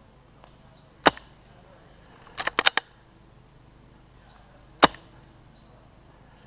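Airsoft guns firing in the woods: a single sharp shot about a second in, a quick burst of about five shots around two and a half seconds, another single shot near five seconds, and a further burst right at the end.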